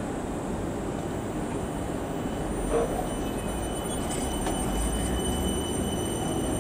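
Class 455 electric multiple unit pulling out of the platform, wheels rumbling steadily on the rails. A single short knock comes a little before halfway, and a thin high whine joins soon after.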